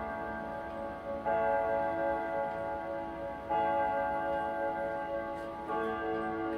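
Howard Miller 610-311 grandfather clock striking five o'clock: three ringing hour strikes a little over two seconds apart, each one still sounding when the next comes in. These are the closing strokes of the hour count.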